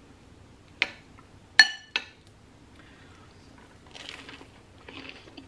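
Metal spoon clinking against a ceramic soup bowl: three sharp clinks in the first two seconds, the middle one loudest and ringing. About four seconds in comes a softer crunch as a toasted grilled ham and cheese sandwich is bitten.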